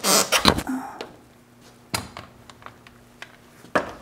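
Hand tools clinking, tapping and knocking against the metal of a truck's front end while a bolt is worked on. There is a quick clatter in the first half second, then scattered light taps and a sharper knock near the end.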